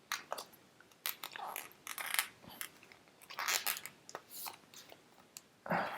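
Paper documentation envelope from a MacBook Pro box being opened and handled: irregular crinkling and rustling of paper with small sharp clicks.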